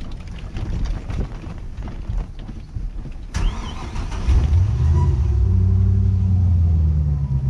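Low rumble of road and wind noise, then a click, and about four seconds in a Nautique wake boat's inboard engine starts and settles into a steady low idle.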